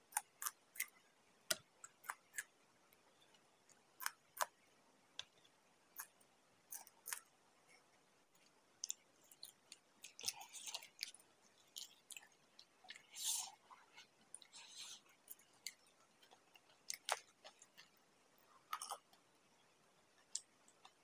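Close-miked eating of raw green chillies and samosa: irregular sharp crunches and wet chewing clicks, roughly one a second, with short pauses between.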